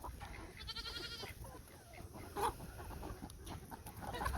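A goat bleats, a short wavering call about a second in, with another short animal call a little after two seconds, over scattered farmyard noise.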